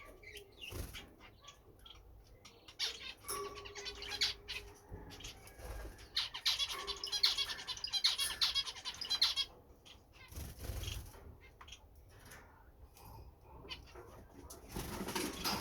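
European goldfinches twittering and chirping in quick high notes, busiest about halfway through.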